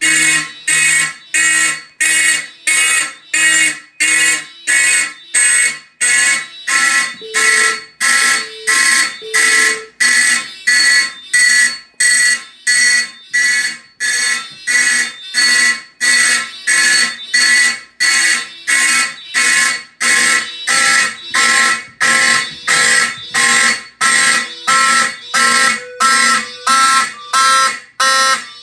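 Simplex fire alarm horns sounding together, loud and pulsing evenly at about two blasts a second.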